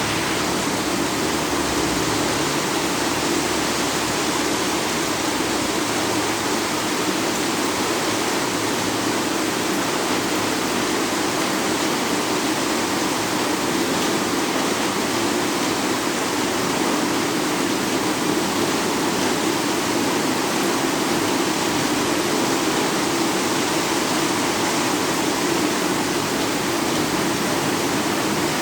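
Heavy rain pouring down in a steady, even rush, with no breaks or changes.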